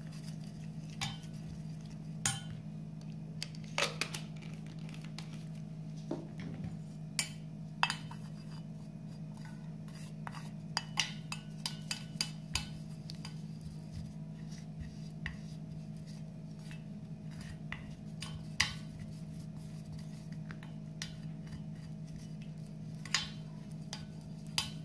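Plastic spoon stirring and scraping a paste of cornstarch and rose water in a stainless steel saucepan, with irregular light clicks and taps against the pan, over a steady low hum.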